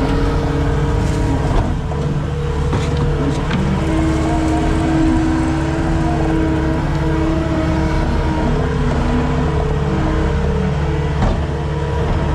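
Skid steer engine running steadily under load, with some tones shifting in pitch and a couple of short knocks.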